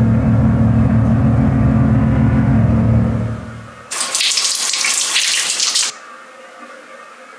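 Water running hard from a wall tap over a person's hands: an even hiss that starts abruptly about four seconds in and cuts off about two seconds later. Before it, a low steady drone fades out.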